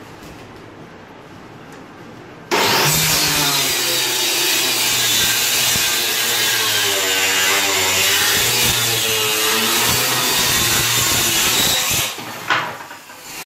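Handheld electric power saw starting suddenly about two and a half seconds in and cutting along a curve through 22 mm plywood. Its motor pitch wavers under load. It stops about nine seconds later, with one short burst after.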